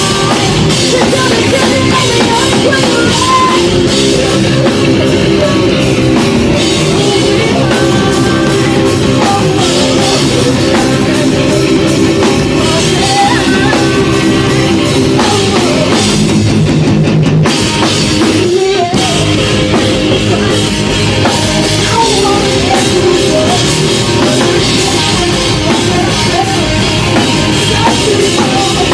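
Live rock band playing loudly: drum kit and electric guitar, with a female singer on microphone.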